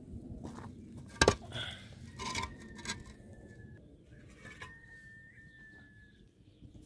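A sharp knock about a second in, then a few lighter clinks and scrapes, with a faint thin high tone held twice in the background.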